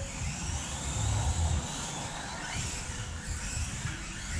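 Kyosho Mini-Z Euro truck RC cars racing: the whine of their small electric motors rises and falls as they accelerate and brake, over an uneven low rumble.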